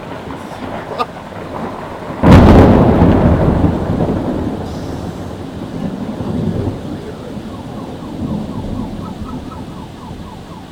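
Close thunderclap: a sudden loud crack about two seconds in, then thunder rumbling and fading over several seconds, over steady heavy rain. Near the end an alarm starts up with faint rapid chirps.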